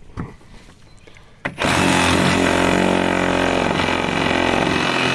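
Power saw starting up about a second and a half in and then running steadily at a constant pitch.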